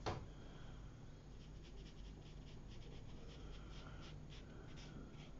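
Faint scratching and dabbing of a fine paintbrush's bristles on watercolour paper in short strokes, coming thicker about halfway through, with one sharp click at the very start.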